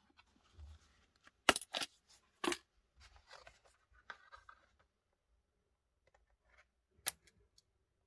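A charger's cardboard retail box being opened by hand: a few sharp clicks and snaps about one and a half to two and a half seconds in, then soft rustling and scraping of packaging, and one more click near the end.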